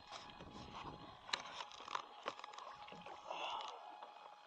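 Faint handling noise on a camera mounted on an RC floatplane as the model is lifted by hand from the water onto a wooden dock: scattered light clicks and knocks against the foam airframe, and a soft rustle of clothing brushing the camera about three and a half seconds in.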